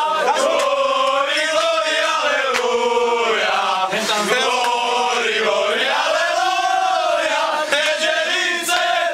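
A group of men chanting a song together in unison, loud and sustained, the notes sliding up and down in a long melody line.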